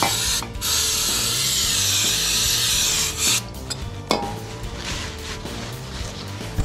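Aerosol can of brake cleaner spraying in one steady hiss for about two and a half seconds, then a paper towel rubbing over the metal face of the flywheel.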